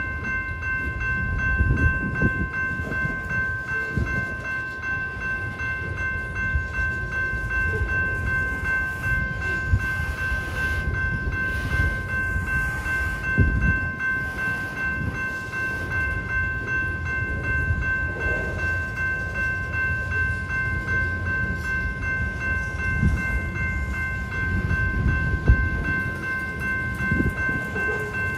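Covered hopper cars of a freight train rolling through a grade crossing: a steady low wheel-and-rail rumble with occasional thumps. Over it the crossing's General Signals type 2 electronic bell rings on, an even, rapidly pulsing tone.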